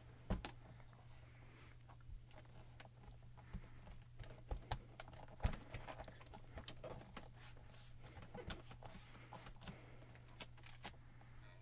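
Scattered light clicks, taps and rubbing from hands closing, pressing down on and lifting the clear plate of a stamp positioning tool, with a steady low hum underneath.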